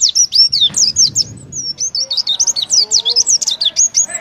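Oriental white-eye (pleci) in full song: a loud, rapid, unbroken run of high chirping notes that sweep up and down, many notes a second. Singing like this is the burst style called "tembakan" (shooting).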